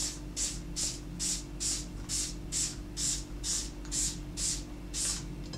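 Hand-held trigger spray bottle misting water onto a paper napkin, squeezed over and over: about a dozen short hissing sprays, a little over two a second.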